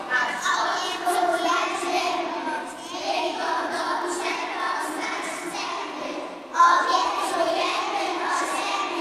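A group of young children singing together in phrases, with a loud new phrase coming in about two thirds of the way through.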